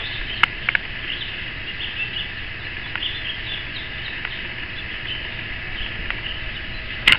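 Many small birds twittering and chirping continuously, with a few sharp clicks scattered through.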